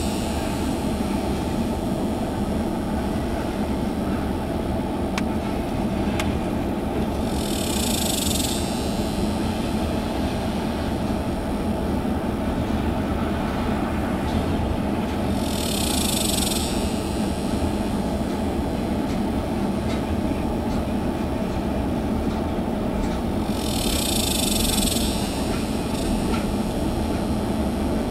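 Freight train of tank cars rolling past with a steady rumble of wheels on rail. A high hiss-like sound about a second long comes and goes three times, roughly every eight seconds.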